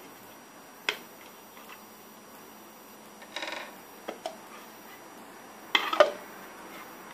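Clear plastic Buddha-shaped pear mould being handled: its plastic halves click and knock against each other, with a short rapid crackle a little after three seconds and the loudest clatter near the end.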